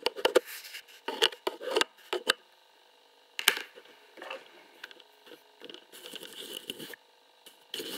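Sharp clicks and knocks of things handled on a table close to a camcorder's built-in microphone: a quick run of them in the first two seconds or so and a loud one about three and a half seconds in, then softer scattered handling noise that thickens near the end.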